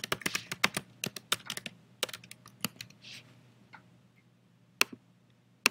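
Typing on a computer keyboard: a quick run of key taps for about the first two and a half seconds, then two single sharper clicks near the end.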